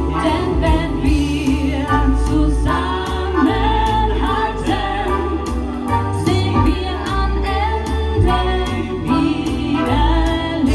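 Live pop duo performing a song: a woman sings lead through a microphone over electronic keyboard backing with a steady beat and bass.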